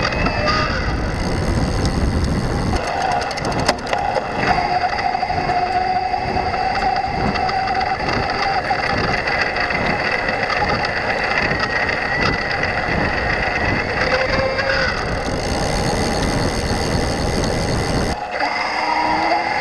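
Yamaha PW-ST e-bike mid-drive motor running under assist, with a steady whine and a scratchy, chattering rattle. The owner takes the chatter for a noise that does not sound right, heard on low assist levels when riding gently. Rumble from wind and tyres is heavier at the start and again near the end.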